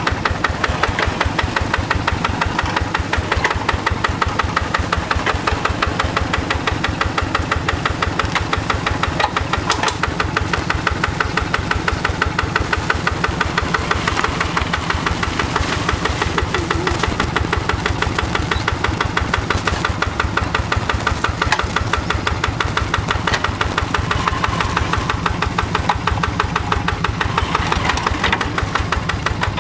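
Single-cylinder Yanmar diesel engine of a two-wheel hand tractor running steadily with an even, rapid beat.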